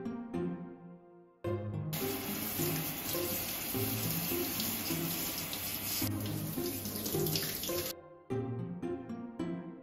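Water running from a handheld bathroom shower head, starting about a second and a half in and cutting off suddenly near the end, over light background music.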